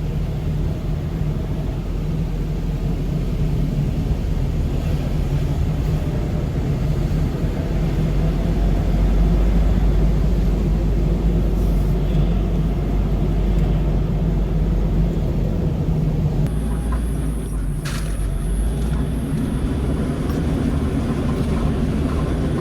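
A car driving: a steady low rumble of engine and road noise, with a single sharp click about eighteen seconds in.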